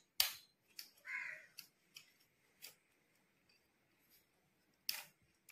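Plastic flip-lock leg clips on a tripod being snapped open and shut, a series of short sharp clicks spread irregularly, with one louder snap near the end. A brief higher-pitched call sounds about a second in.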